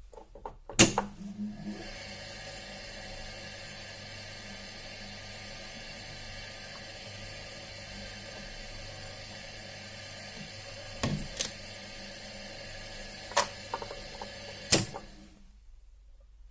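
Drill press switched on with a loud click and running steadily while drilling further into a pocketknife rivet, with a few sharp clicks and knocks along the way, then switched off near the end.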